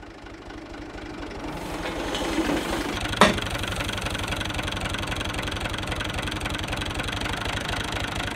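UTB 445 tractor's diesel engine running with a steady, even beat, growing louder over the first three seconds as the hydraulic bale spear lifts a round hay bale. A single sharp clank a little over three seconds in.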